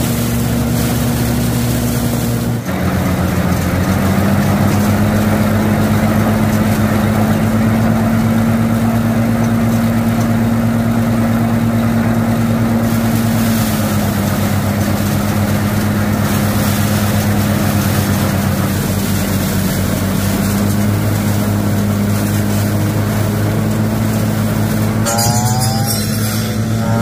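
Mini rice thresher running steadily, its motor humming at a constant pitch while bundles of rice stalks are fed against the spinning spiked drum. Near the end a backpack brush cutter's engine takes over, its pitch rising and falling as it cuts rice stalks.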